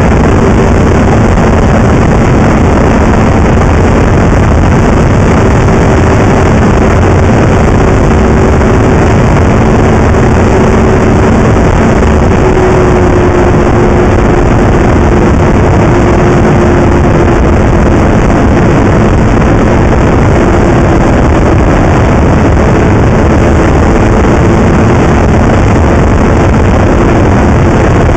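Snowmobile engine running at a steady cruising speed, loud and close, over a constant rush of wind on the microphone; its note eases slightly lower through the middle and then holds.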